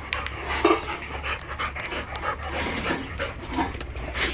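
Labrador retrievers panting close by, in short irregular breaths.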